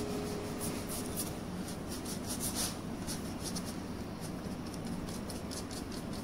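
Paintbrush with very little dark paint on it, brushed and dabbed along the edge of an MDF board while dry-brushing its border: a run of short, irregular scratchy strokes.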